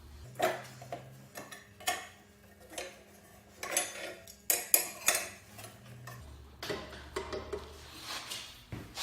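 Irregular metallic clinks and knocks from hand tools and bolts being worked on a lawn mower's blade mount.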